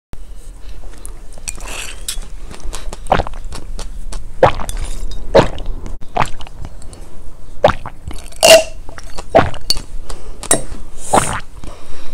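Close-miked mouth sounds of someone drinking seed-filled water from a glass jug: sips, swallows and sharp wet clicks, about ten separate sounds at irregular intervals.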